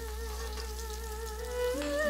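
Background music: a single-line melody holds one wavering note, then steps up to higher notes near the end.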